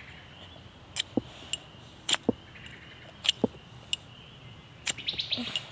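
Ferro rod scraped hard with its metal striker: sharp scraping strikes, mostly in pairs about a second apart, then a quick flurry of short strokes near the end. The sparks are being thrown at a cotton-ball tinder that has not yet caught.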